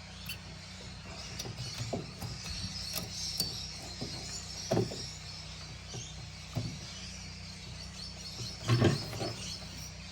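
Scattered light clicks and knocks of hands handling a car headlight unit while its D5S xenon bulb is twisted out of its socket.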